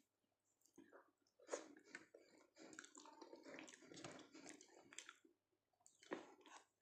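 Faint, close-up chewing of a soft, wet mouthful of dal rice and Maggi noodles, with squishy mouth sounds, and a short burst of chewing again near the end.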